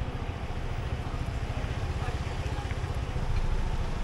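Road vehicle noise: a steady low rumble, growing a little louder about three seconds in.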